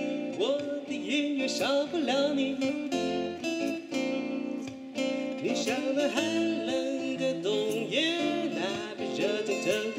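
Live acoustic music: two acoustic guitars strummed and picked, with a man singing the melody over them.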